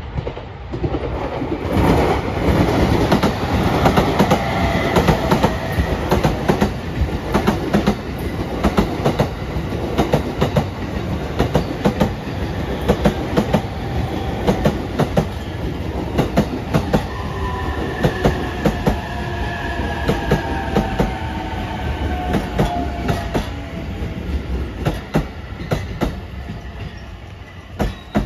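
JR Utsunomiya Line electric commuter train pulling into the station at low speed, its wheels clacking over rail joints in a long run of sharp clicks over a steady running rumble. It starts about a second in, and a faint falling tone sounds through the second half.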